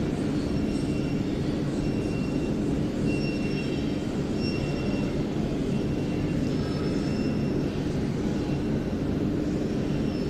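Steady low rumble with a constant hum running underneath, and faint short high tones coming and going.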